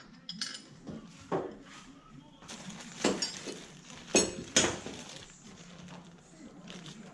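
Small loose metal parts clinking and knocking together as bagged parts are handled, with the crinkle of plastic parts bags; a few sharp clinks, loudest about three and four seconds in.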